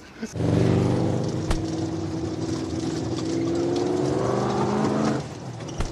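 Beach buggy engine running at a steady pitch while driving, heard from on board. It starts abruptly about a third of a second in and drops away shortly before the end.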